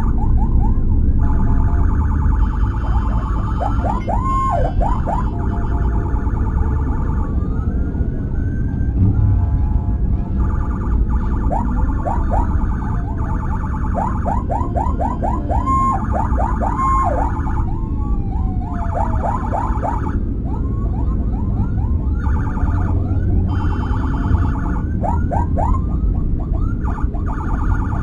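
Emergency-vehicle sirens of a police escort convoy and an ambulance sounding together: fast yelping sweeps, slower rising and falling wails, and short stretches of a steady horn-like tone, switching back and forth every few seconds. Underneath runs a steady low vehicle engine and road rumble.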